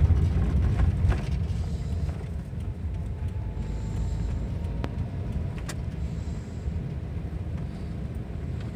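Steady low rumble of a car's engine and tyres heard from inside the cabin while driving, a little louder in the first second, with a couple of faint clicks around the middle.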